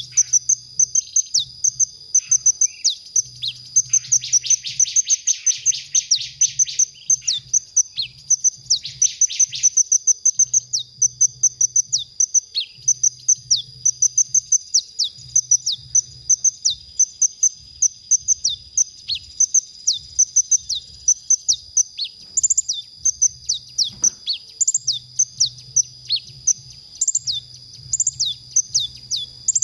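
Male kolibri ninja sunbird singing: a fast, continuous run of thin, high chirps, each sliding downward, broken by a rapid buzzy trill about four seconds in and again near nine seconds. A steady thin high tone runs underneath.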